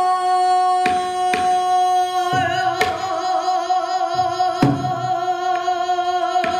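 A female pansori singer holds one long, steady note through a microphone, its vibrato widening in the second half. A few sharp knocks sound now and then under the note.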